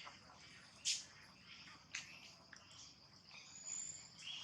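Faint outdoor ambience of insects trilling steadily, with a sharp click about a second in, a few softer clicks after it, and a brief high whistle near the end.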